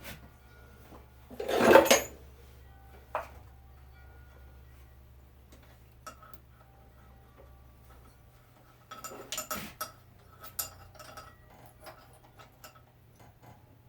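Metal hand tools and engine parts clinking and rattling during work on a small twin-cylinder mower engine. There is one loud clatter about a second and a half in, a sharp click a little later, and a run of lighter clinks and rattles near the end, over a faint steady low hum.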